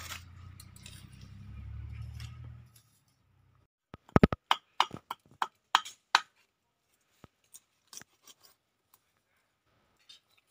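A low rumble for the first few seconds, then, after a short pause, a run of sharp scrapes and taps as a kitchen knife scales small fish on a wooden board, coming thick at first and thinning out toward the end.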